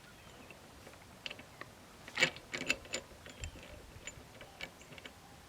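Scattered light clicks and clinks of metal parts being handled as the old handlebar clamp is worked off the mini bike's handlebar, the loudest about two seconds in.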